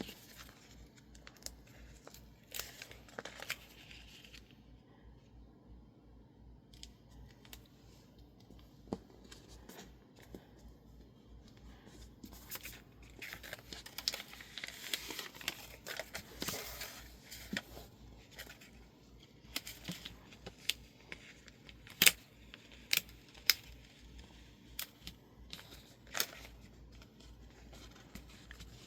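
Illustrated masking tape and label paper being handled: tape peeled and torn, with paper crinkling and scattered sharp clicks. A longer stretch of peeling comes around the middle, and a few louder sharp clicks follow near the end.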